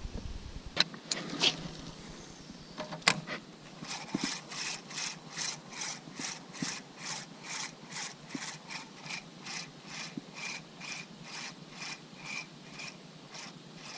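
Spinning reel being cranked on a lure retrieve: its gears whirr in an even rhythm of about two to three turns a second, after a few sharp clicks at the start.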